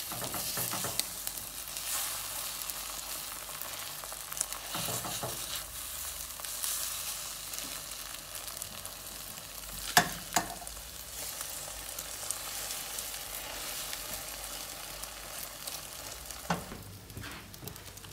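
Beaten eggs frying in hot oil in a stainless steel pot, sizzling steadily while a spatula stirs and scrapes them. Two sharp knocks stand out about halfway through.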